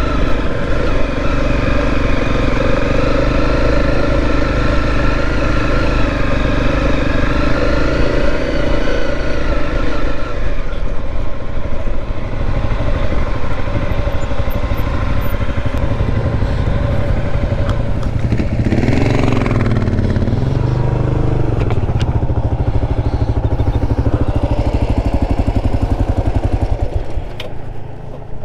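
Dual-sport motorcycle engine running under light throttle on a dirt road, settling to a lower, idling note about ten seconds in as the bike slows. Its pitch rises and falls briefly about two-thirds of the way through.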